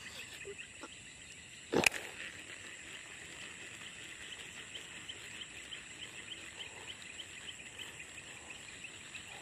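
Insects chirping steadily in an even pulse of about four chirps a second. A single knock about two seconds in.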